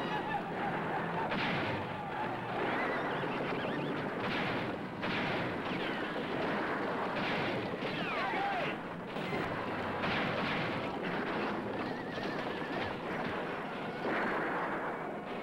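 Old western film soundtrack of a gunfight: horses whinnying over a steady din, with several rifle shots.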